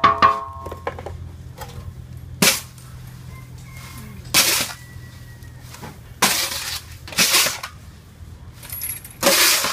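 A metal paddle clangs and rings against a large iron wok, then come repeated short rattling, rushing bursts as puffed rice and hot sand are scooped and shaken through a wooden sieve box to separate out the sand.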